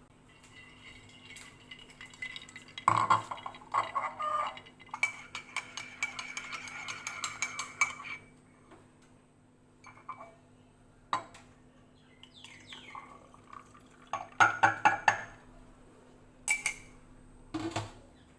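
Dishes and utensils clinking and clattering, with a quick run of clinks for about three seconds around the middle and another burst of clatter near the end.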